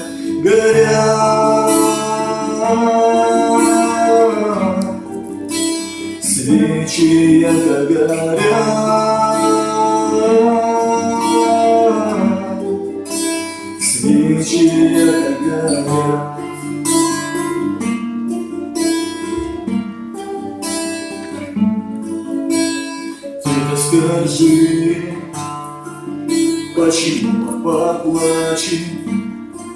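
Music: a slow song with acoustic guitar accompaniment and a melody in long held notes.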